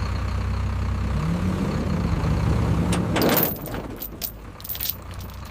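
A motor vehicle engine running with a steady low rumble, then a brief rush of noise about three seconds in followed by a few light metallic clinks and rattles.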